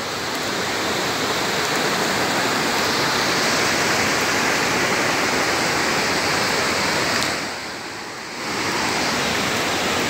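Steady rushing of a nearby waterfall, a dense even roar of falling water that briefly falls away about eight seconds in before returning.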